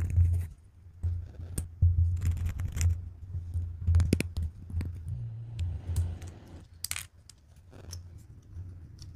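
Small plastic model-kit parts clicking, scraping and snapping as they are handled, filed and pressed together, with a metal file rasping on a small part near the start and low rumbling handling noise underneath.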